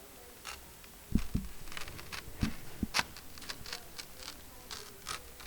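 Hand-made foley: a scattered run of small clicks and taps, with a few low thuds between about one and three seconds in.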